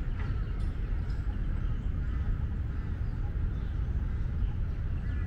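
Tuxedo cat purring steadily as its cheek is scratched: a dense, low fluttering rumble. Faint bird chirps sound above it.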